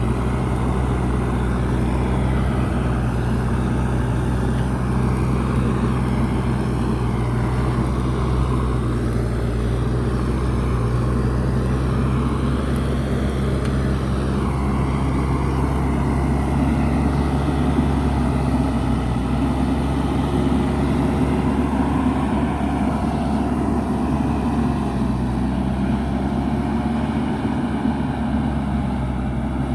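JCB backhoe loader's diesel engine running steadily while it works, a deep even drone that holds its pitch throughout.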